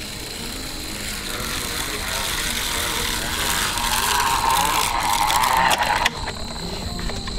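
Chest-mounted hand-crank broadcast seed spreader whirring as it is cranked and flings seed. It grows louder as it comes closer and cuts off suddenly about six seconds in.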